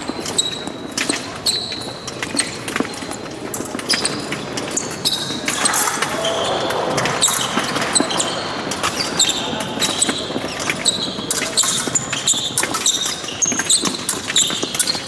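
Épée fencers' feet stamping and shuffling on the piste during a bout, with many sharp clicks and short high metallic rings from the blades making contact.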